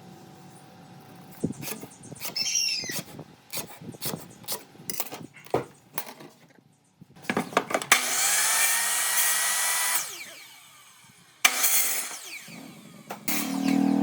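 Workshop knocks and clicks of wood being handled, then a power tool spins up and runs for about two seconds before winding down, with a second short burst soon after.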